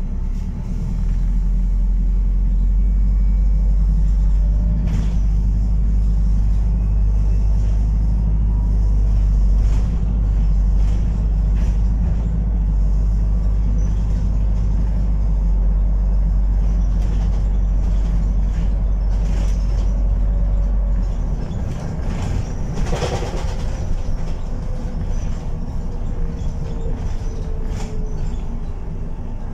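Cabin noise aboard a moving New Routemaster diesel-electric hybrid double-decker bus: a heavy low engine drone that drops away about two-thirds of the way through. About a second later comes a brief clatter, then a faint whine that slowly falls in pitch.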